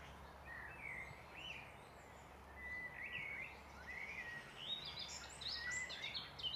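Wild songbirds singing: a few scattered chirps, then a quick run of high notes stepping downward in the last two seconds, over a faint steady background hum.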